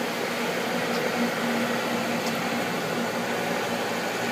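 Gisholt 3L saddle-type turret lathe running with its power feed engaged, giving a steady mechanical hum and whir with an even tone.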